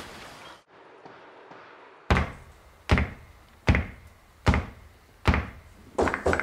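A soft outdoor rush of noise cuts off abruptly within the first second. After a short quiet, background music starts with a steady thudding beat, a little under a second between beats, and more instruments come in near the end.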